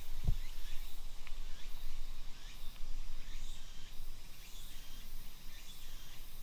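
Small woodland birds chirping: short, quick downward-slurred notes repeated every second or so over a faint steady insect hum. Two low thuds come right at the start.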